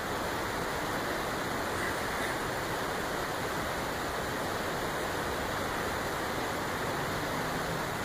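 Steady rushing background noise, even and unbroken, with no distinct events.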